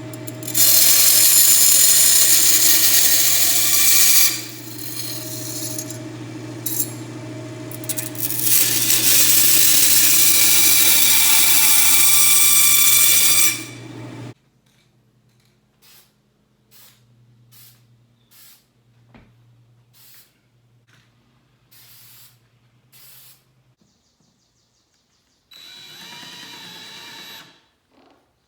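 A power tool's motor runs in two long bursts of about four and five seconds. Light clicks and taps follow, then a shorter run near the end.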